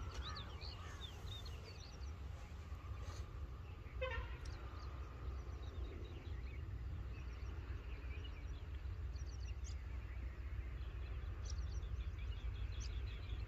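Small birds chirping, with a quick repeated trill near the end, over a steady low rumble.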